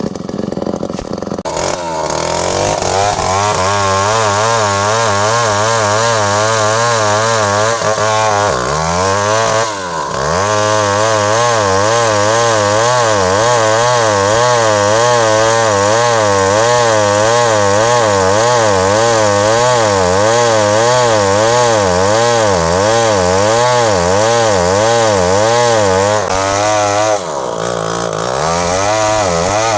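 Chainsaw revved up to high speed and held there while sawing into wood, its engine pitch wavering up and down about once a second. It drops briefly twice, once about ten seconds in and once near the end, and revs back up each time.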